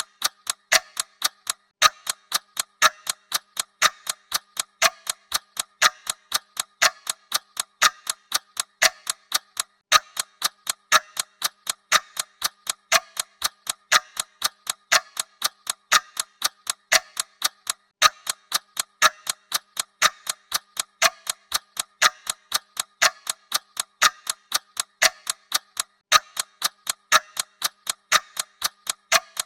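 Clock ticking sound effect: a steady, even run of sharp mechanical ticks.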